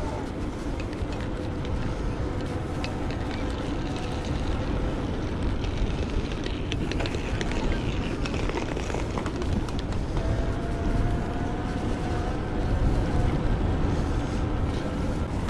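Wind buffeting the microphone of a moving bicycle, a steady rumble, with faint street noise and faint held tones beneath it.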